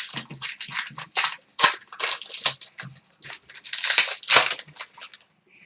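Trading cards and their packaging being handled: a quick run of papery crinkling and scraping rustles that thins out near the end.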